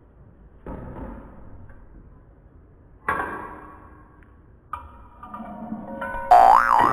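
Cartoon-style sound effects added in editing: short ringing pings about one, three and almost five seconds in, then a louder tone near the end that slides up and back down.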